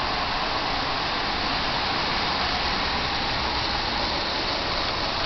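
Marx toy train locomotives with electric Marx 400 and 490 motors running on track: a steady whir of motors and gears with the wheels running over the rails.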